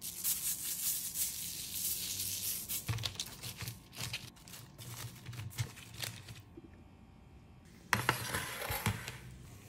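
Seasoning crumbled between fingertips and sprinkled onto fish fillets, a crackly hiss with many tiny ticks for about three seconds. Then light scattered clicks as asparagus spears are shifted on a parchment-lined sheet pan, and a short noisy rustle and clatter about eight seconds in as the pan is moved.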